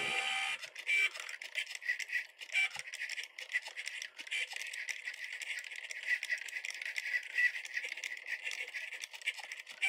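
Cricut Joy cutting machine cutting vinyl: its motors whir as the blade carriage shuttles side to side and the mat feeds back and forth. The sound is an uneven, rattling whir that starts suddenly and keeps changing in loudness with each move.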